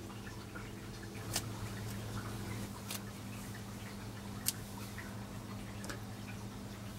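A steady low electrical hum, with three short sharp clicks about a second and a half apart.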